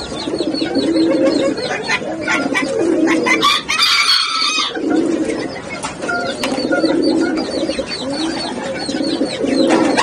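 A flock of caged Barbary doves cooing, low rounded coos repeating about once a second and overlapping, with faint higher chirps and ticks among them and a brief higher-pitched call about four seconds in.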